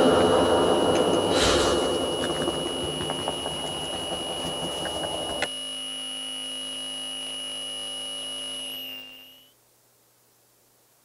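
Electronic noise music: a dense noise wash over a steady high tone cuts off abruptly about five and a half seconds in. The high tone and a low hum are left holding on their own. About nine seconds in the tones bend upward and fade away into near silence.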